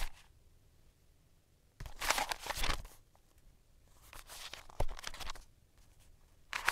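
Hands handling and rubbing a knit balaclava with plastic goggle lenses and a filter disc, giving three bursts of scratchy fabric rustling about a second each, with a sharp click in the middle burst.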